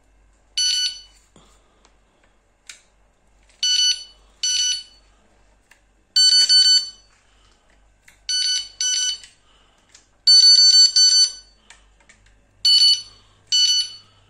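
Electronic carp fishing bite alarms going off in about eight short bursts of rapid high-pitched bleeps. They are being triggered by hand with a thin stick standing in for the fishing line, as a test of the alarm.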